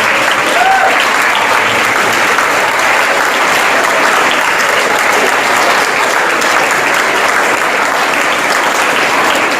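Audience applauding, many hands clapping at once in a steady, unbroken patter.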